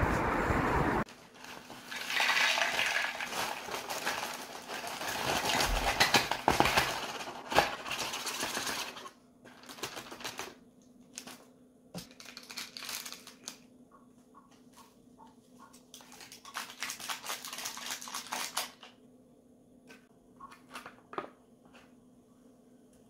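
About a second of wind noise on the microphone that cuts off abruptly. Then small hard objects are handled, with clinking, tapping and rustling: dense for several seconds, then in shorter clusters with quiet gaps, and a few faint ticks near the end.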